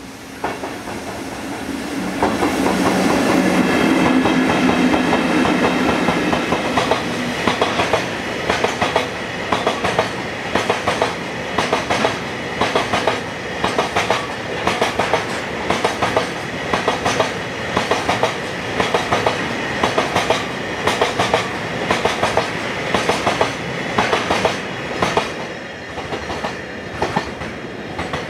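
A JR Freight EF64 electric locomotive passing close with a low steady hum, followed by a long freight train whose wagon wheels clack over the rail joints in a regular clickety-clack, roughly once a second.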